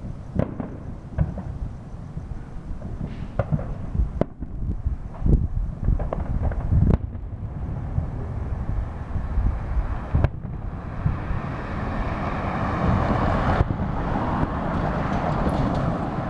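Aerial fireworks shells bursting, a string of sharp bangs through the first seven seconds or so, then a denser steady rushing noise from about ten seconds on. A low rumble of wind on the microphone runs underneath.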